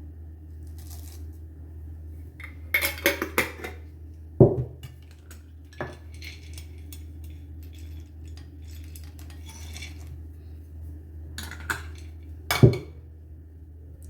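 Spoon and dishes clinking while breakfast is spooned into a bowl: scattered clusters of light clicks, with two sharper knocks, one about four seconds in and one near the end, over a steady low hum.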